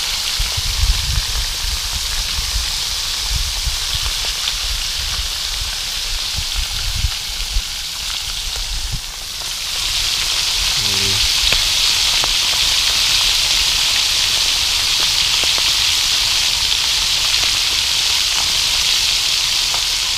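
Whole small fish, such as pirapitinga, frying in hot oil in a frying pan with a steady sizzle. The sizzle grows louder about halfway through.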